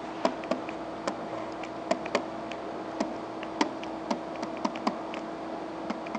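Pen stylus clicking and tapping on a tablet screen while drawing, in light, irregular clicks about two a second, over a steady low electrical hum.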